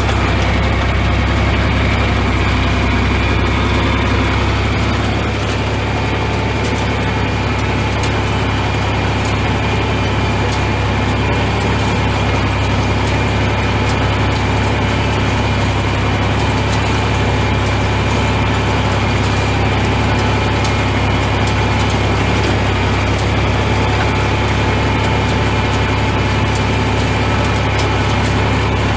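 John Deere 4020 tractor engine running steadily at a constant speed.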